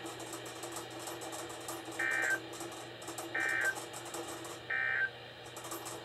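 Three short electronic beeps, evenly spaced about a second and a half apart, from a Midland WR-300 NOAA weather radio, over faint steady radio hiss.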